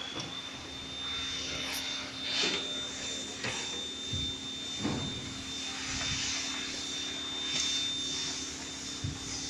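The machine's electric motor running with a steady high-pitched whine over a low hum, with a few faint knocks and rustles of handling.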